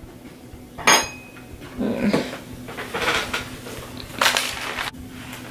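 Objects being handled at a desk: a short, hard clack with a brief ring about a second in, then several bursts of rustling.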